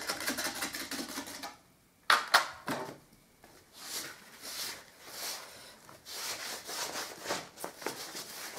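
A metal filling blade scraping half-dry filler off a plaster wall in quick strokes for about a second and a half, then two sharp knocks, then a damp cloth wiping over the filled plaster in slower rubbing strokes.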